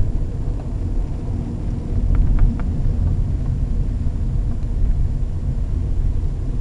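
Car driving, heard from inside the cabin: a steady low rumble of engine and road noise, with a few faint ticks about two seconds in.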